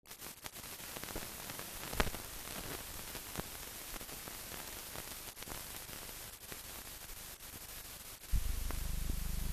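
Blank film soundtrack noise: a steady hiss with scattered clicks and crackles, one louder click about two seconds in. Near the end a low steady hum starts suddenly.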